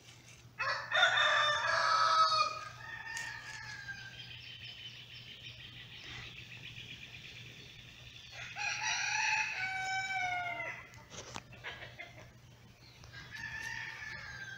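Rooster crowing twice, each crow about two seconds long, the first about a second in and the second about eight seconds later, with a shorter, fainter call near the end.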